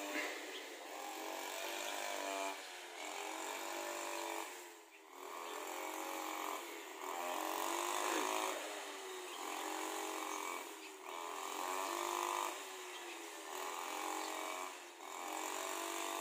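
Engine of a grass trimmer (brush cutter) running, revving up and easing off every second or two as it cuts, with brief drops in between.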